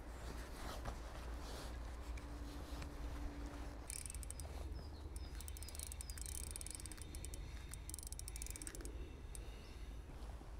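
Shimano Ultegra 2500 spinning reel being cranked during a retrieve: a high whirring with fine ticking that starts about four seconds in and stops about a second before the end, over a low steady rumble.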